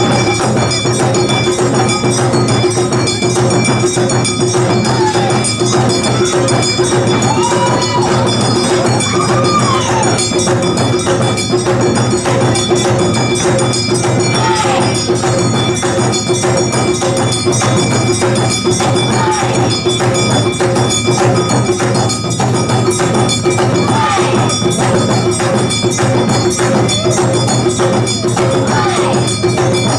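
Awa odori dance music playing steadily, with bells and percussion.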